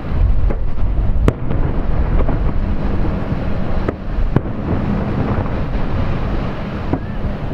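Fireworks display: a continuous rumble of bursting shells, with sharp cracks standing out about a second in, twice around four seconds, and near the end. Wind buffets the microphone throughout.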